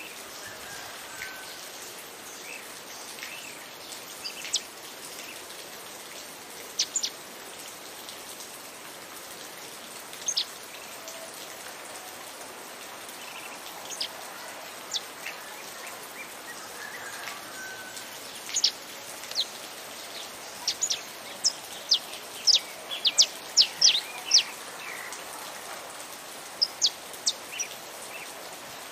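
Saffron finch singing: short, sharp high chips, scattered singly and in small runs, coming thickest about two-thirds of the way through, over a steady hiss of rain.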